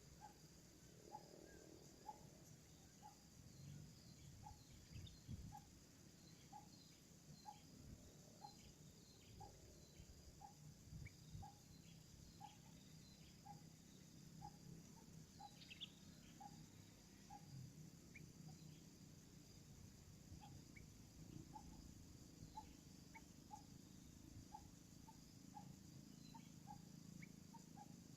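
Faint animal calls: a steady series of short low pips, a little over one a second, with scattered short high chirps.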